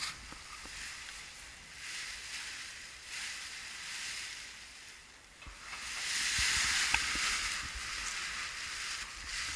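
Nylon paraglider canopy rustling as it is pulled off the grass and inflates overhead, a hissing rustle that swells several times and is loudest a little past halfway.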